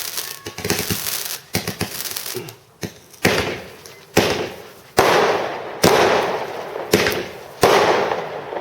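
Fireworks going off: dense crackling at first, then a run of sharp bangs about once a second, each followed by a noisy tail that fades away over most of a second.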